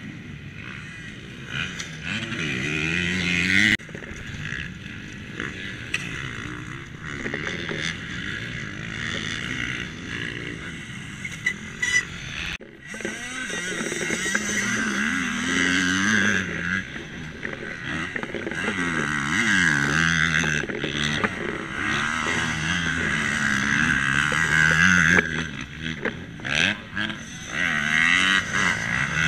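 Motocross dirt bike engines revving on the track, their pitch rising and falling again and again as the riders accelerate toward and over the jumps.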